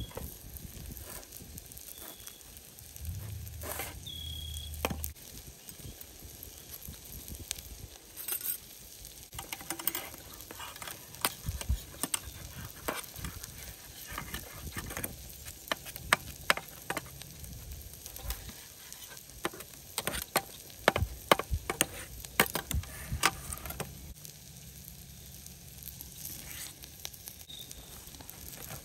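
Wood fire crackling in a fire pit, with a low hiss and many irregular sharp pops that come thickest and loudest in the second half.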